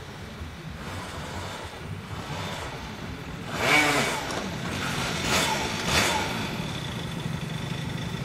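Honda Dio scooter engine riding up and pulling to a stop: its note swells and drops about three and a half seconds in, gives two short louder blips about a second apart, then settles to a steady idle.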